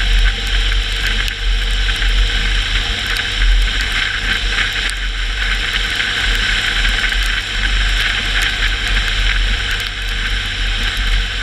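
A car driving: a steady low rumble of engine and road with a constant hiss over it.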